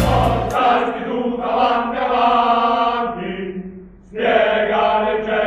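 Voices singing an Italian school anthem in chorus; an instrumental introduction drops away about half a second in. The singing pauses briefly about four seconds in, then carries on.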